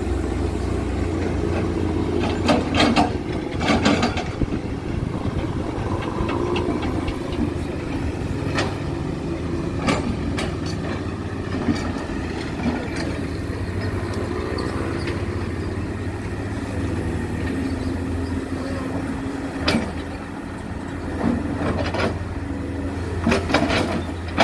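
Heavy diesel machinery engines running steadily, with sharp knocks and clanks now and then: a cluster about three to four seconds in, single ones later, and several more near the end.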